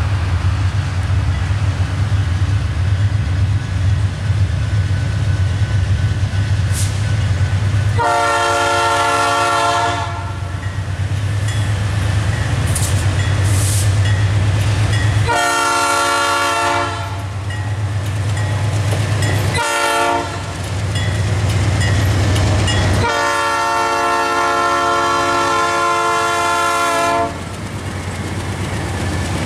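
Lead locomotive of two GE B40-8W diesels sounding its multi-tone air horn in the grade-crossing pattern: long, long, short, long. Under the horn the diesel engines run with a steady low rumble as the locomotives roll past close by near the end.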